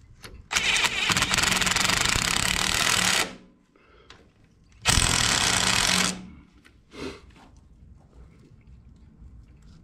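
Impact driver hammering bolts home: one run of about three seconds, then a second, shorter run of about a second.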